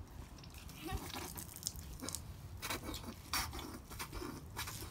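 Water squirted from plastic squeeze bottles in short spurts, splashing onto brick paving, several times at irregular intervals.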